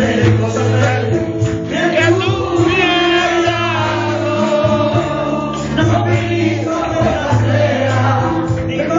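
A Christian worship song sung in Spanish: a man sings the lead through a microphone and PA, with a small group of backing voices. Underneath are instrumental accompaniment and long held bass notes.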